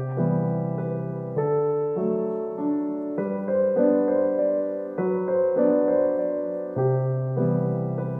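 Background piano music: soft sustained chords that change about every second.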